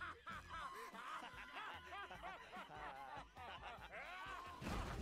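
Faint snickering laughter from an anime character's voice: a quick run of short syllables that rise and fall, several a second.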